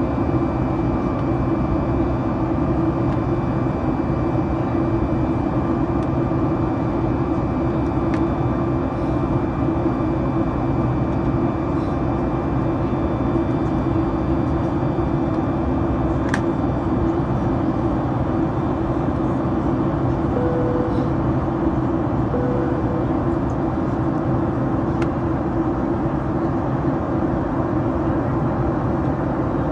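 Boeing 737 MAX 9's CFM LEAP-1B turbofan engines heard inside the passenger cabin during the climb after takeoff: a steady, unbroken drone with faint high whines from the fans.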